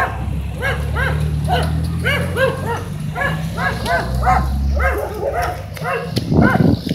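Dogs behind a fence barking over and over, two or three short barks a second, at a dog walking past. A low steady rumble runs under the barking for the first five seconds.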